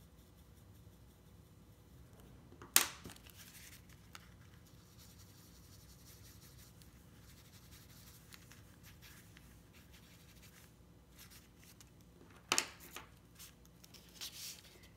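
Faint scratching and rubbing of graphite pencil and a rolled paper towel blending on drawing paper. It is broken by two sharp clicks, a few seconds in and again near the end.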